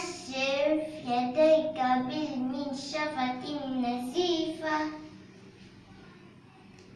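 A young girl's voice reciting in Arabic in a sing-song way, its pitch held level on each word, for about five seconds, then it stops and only faint room hiss is left.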